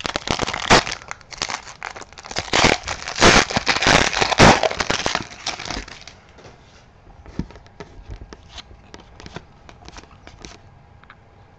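A hockey card pack's wrapper being torn open and crinkled for about six seconds, then the cards being slid apart and flicked through, with scattered small clicks.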